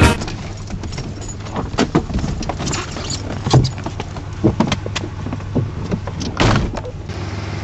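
Car running with a steady low hum, scattered clicks and knocks, and a louder bump about six and a half seconds in.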